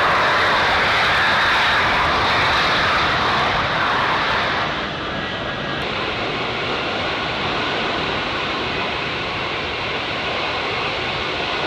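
C-17 Globemaster III turbofan engines running loud and steady with a high whine. About five seconds in, the sound cuts to a slightly quieter, duller stretch of the same engine noise.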